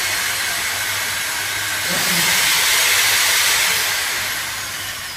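Hair dryer blowing hard with a steady rushing hiss over a low motor hum. Near the end it is switched off and winds down, its pitch falling as it fades.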